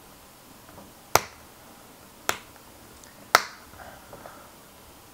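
Three sharp snaps about a second apart: the ASUS Transformer Prime's back cover clicking into place as its edge is pressed shut.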